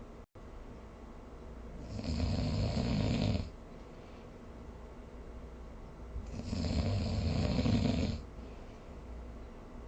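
A sleeping person snoring: two long snores, each about one and a half to two seconds, some four seconds apart, with quieter breathing between them.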